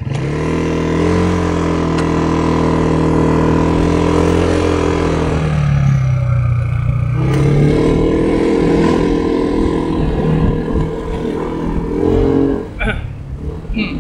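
Vehicle engine running just after starting and pulling away, its pitch rising, dipping for a second or two in the middle, then climbing again as it gathers speed.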